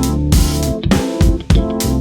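Background music: guitar and bass over a steady drum beat.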